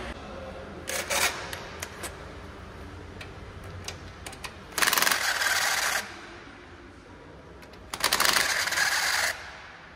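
Cordless power tool running on engine bolts in two bursts of about a second each, about five and eight seconds in, a rapid rattling hammer. A few light metal clicks of tools and parts about a second in.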